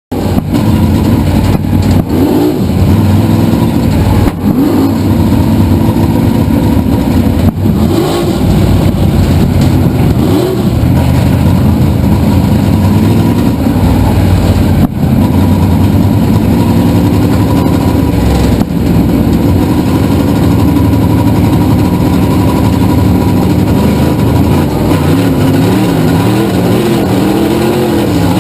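Race car engine running loud and hard, its pitch rising and falling over and over as it revs, with a quick up-and-down wavering near the end.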